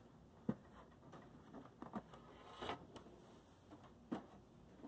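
Faint handling noise as a paper shredder is lifted: a few soft knocks and a brief rustle.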